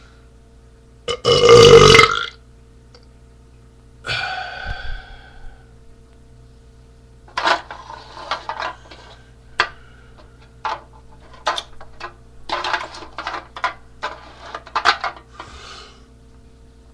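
A man's loud burp about a second in, from belching up beer. A weaker burp or vocal sound follows around four seconds, then a string of short, sharp sounds over the next eight seconds.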